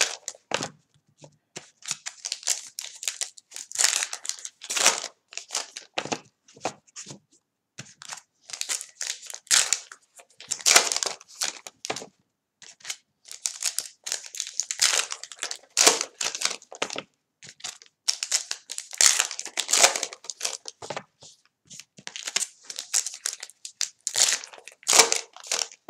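Gypsy Queen baseball card packs being torn open by hand, their paper-and-foil wrappers crinkling and crumpling while the cards are handled and stacked: a continuous string of short, irregular, high-pitched rustles.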